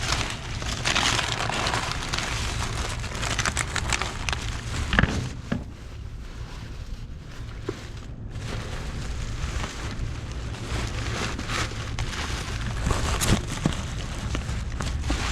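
Plastic trash bags and their contents rustling and crinkling as they are rummaged through by hand, with irregular crackles and knocks over a steady low rumble.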